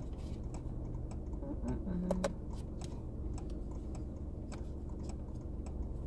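Scattered light clicks and taps of hands handling a small blind-box toy's packaging, over a low steady hum.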